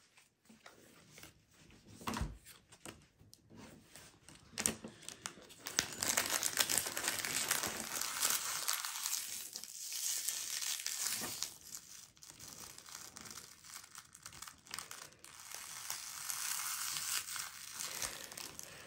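Pokémon booster pack wrapper crinkling and tearing as it is handled and opened, in two long stretches starting about six seconds in, after a few faint taps near the start.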